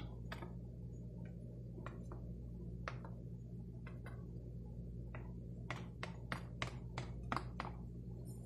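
Small clicks and taps from a plastic squeeze bottle of satin glazing liquid as dots of it are squeezed onto paper. The clicks are scattered at first, then come as a quicker run of about eight sharper clicks in the second half, over a steady low hum.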